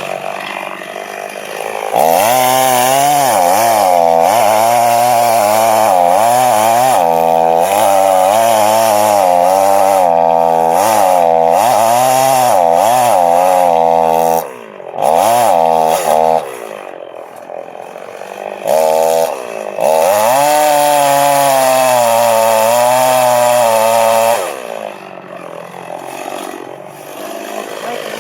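Two-stroke chainsaw cutting through a tree trunk at full throttle, making the back cut of a felling, its engine note wavering under load. About 14 seconds in it drops to idle with a couple of short revs, then cuts again from about 20 to 24 seconds before falling back to idle.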